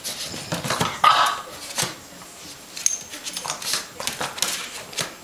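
A Boston terrier puppy and a Bernese mountain dog at play: scuffling and scratching of paws on the dog bed and tile, with a short loud bark or yelp about a second in.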